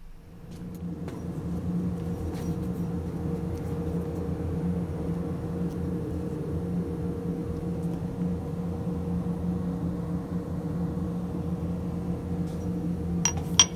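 Steady low machine hum, with a few sharp clicks near the end.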